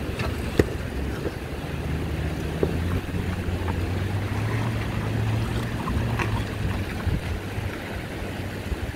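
Toyota Land Cruiser engine running as the SUV drives slowly off-road over stones and grass, with sharp clicks of rocks under the tyres, the loudest about half a second in. Wind buffets the microphone throughout.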